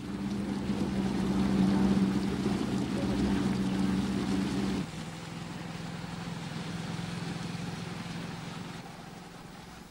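Motorboat engine running with a steady hum and the wash of water; about five seconds in it drops suddenly to a lower level and then fades away.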